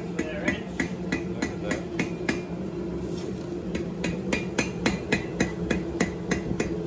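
Blacksmith's hand hammer striking a red-hot steel railway spike on an anvil, drawing it out into a knife blade: ringing blows about three a second, with a short lull near the middle.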